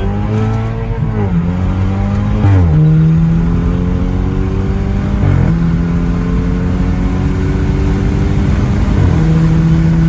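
Twin-turbo BMW 4 Series engine pulling hard under full throttle, its note climbing steadily through each gear and dropping at quick upshifts about a second in, at two and a half seconds, at five seconds and at nine seconds.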